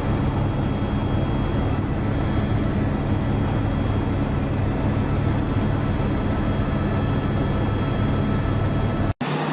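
Steady drone of an aircraft's engines, heard from the aircraft filming the aerial footage. It cuts off abruptly near the end.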